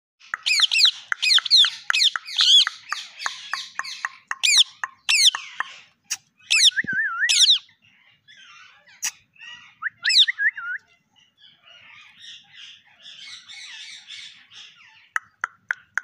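Rose-ringed parakeets calling: fast runs of sharp, high screeches, several a second, for the first six seconds, then scattered calls and softer chatter.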